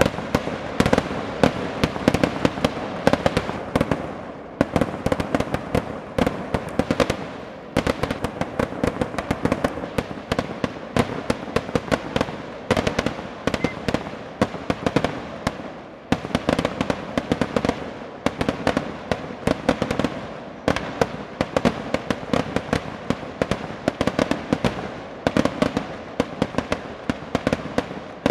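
Fireworks going off in a dense, unbroken barrage of bangs and crackles, many each second.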